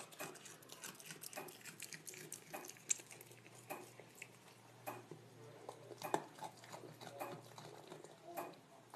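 Red panda chewing crumbly food, a faint, irregular run of small clicks and crunches of eating.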